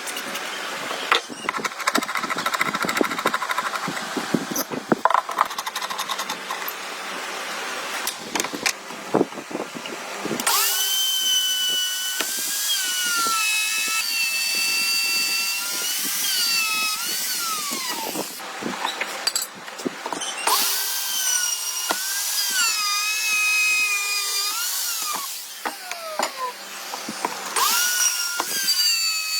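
Electric power tool running in bursts, its motor whine dipping in pitch and recovering as it bites into the wood, stopping and starting again twice. Before it starts, about ten seconds of knocks and clatter from handling wood and tools.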